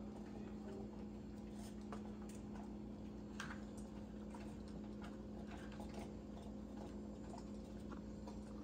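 Two small dogs eating from their bowls: faint, irregular clicks and taps of chewing and of food against the bowls, over a steady low hum.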